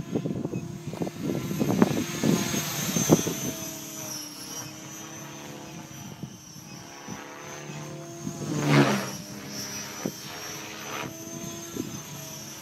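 Align T-Rex radio-controlled model helicopter flying overhead. Its rotor buzz and high motor whine rise and fall in pitch, with choppy, uneven bursts in the first three seconds and a louder surge of rotor noise about nine seconds in.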